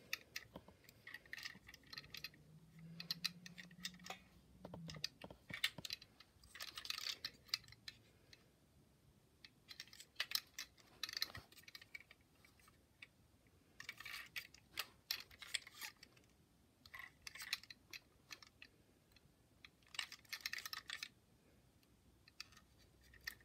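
Faint handling noise of a small die-cast model tanker truck being turned over in the hands: irregular clusters of light clicks and rattles from its metal body, plastic parts and wheels against fingers.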